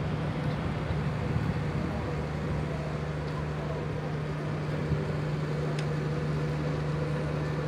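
A steady low machine hum over an outdoor background of general noise, with faint distant voices.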